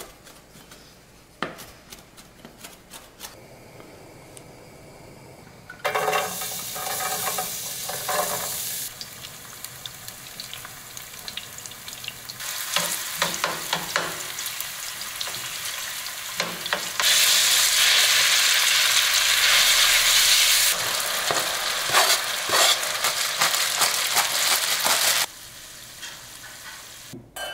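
Bacon pieces and sliced garlic sizzling in oil in a frying pan while a wooden spoon stirs them, with scattered clicks and knocks of utensils. The first few seconds hold only faint clicks; the sizzling starts about six seconds in, is loudest for a few seconds around the middle, and stops shortly before the end.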